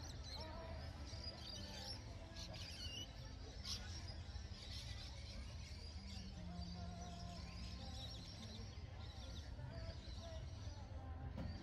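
Outdoor background of birds chirping, with faint distant voices and a low steady rumble underneath.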